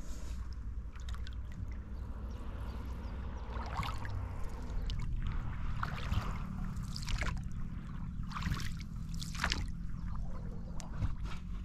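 Oars of an inflatable dinghy being rowed through calm water. The blades splash and drip at each stroke, about one splash every second or so from about four seconds in.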